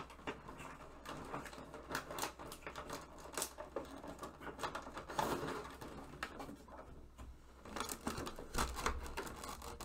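Plastic packaging crinkling and clicking as a Funko Pop figure set is handled and worked out of its box's plastic insert, in scattered, irregular rustles and clicks.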